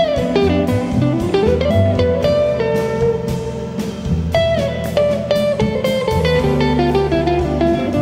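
Jazz guitar playing a flowing melodic line, its notes sliding and bending up and down in pitch, over sustained bass notes and drum and cymbal strokes.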